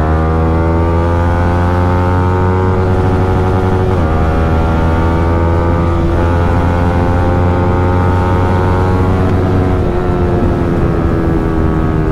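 Yamaha R15 M's single-cylinder engine through an aftermarket Akrapovic exhaust, pulling hard under acceleration with its note climbing steadily. The pitch dips briefly at gear changes about four seconds in and again near ten seconds.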